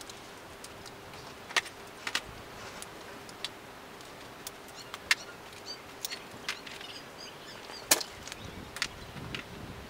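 Irregular sharp clicks and clacks of small scrap electronic parts being handled and set down on a workbench, the loudest knock about eight seconds in.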